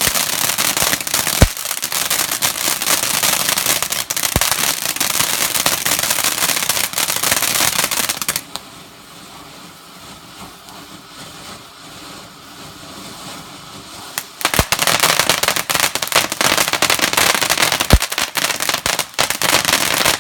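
Firestar pumpkin fountain firework spraying sparks with dense crackling and four sharp bangs. It drops much quieter for about six seconds in the middle, then flares up again.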